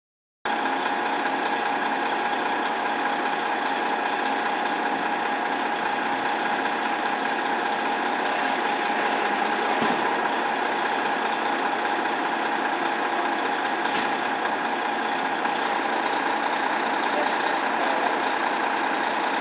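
Fire engine's diesel engine idling steadily in the bay, with an even hum that holds the same pitch and level throughout.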